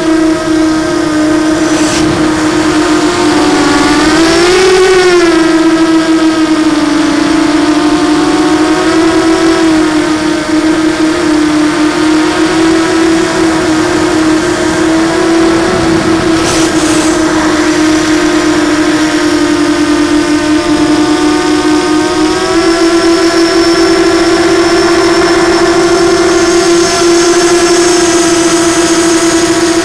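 Blackout Mini H quadcopter's brushless motors and propellers whining in low-level flight, picked up close by its onboard camera. The steady whine rises and falls in pitch with the throttle: a sharp swing up and back down about four to five seconds in, and a smaller step up a little past twenty-two seconds.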